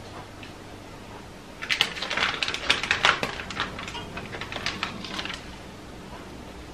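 Crinkly plastic packaging of smoked salmon crackling and rustling as it is handled, a dense run of sharp crackles lasting about four seconds that starts a couple of seconds in.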